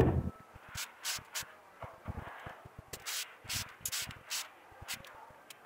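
A soapy scouring sponge scrubbing carrot skins by hand, in short rough rubbing strokes, about two a second.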